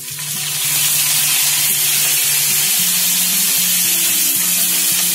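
Wet curry leaves dropped into hot oil with mustard seeds, cumin and garlic in a kadhai, setting off a loud, steady sizzle that starts about half a second in. The sizzle is a phodni (spice tempering) in progress, made louder by the water on the curry leaves. Background music plays softly underneath.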